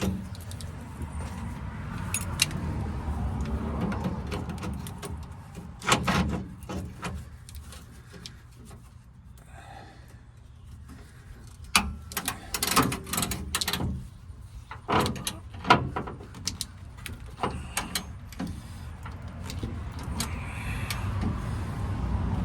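Hand tools clicking, knocking and scraping on metal while working a seized bolt with vice grips that keep slipping. A low steady rumble runs underneath.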